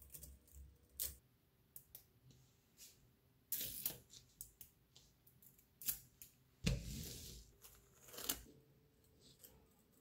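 Small neodymium magnetic balls clicking and clattering as a sheet of them is handled, laid flat and pressed onto a block of magnets: scattered sharp clicks, with a few louder rattling bursts, the loudest one about two-thirds of the way through with a low thud.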